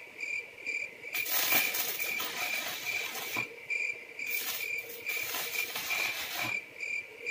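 Stick-welding arc on steel pipe crackling in two spells of a couple of seconds each, over crickets chirping in a steady pulsing rhythm.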